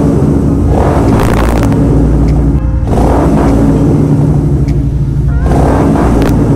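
Royal Enfield 650 parallel-twin motorcycle with an aftermarket loud exhaust, idling and revved hard three times, echoing inside a concrete tunnel.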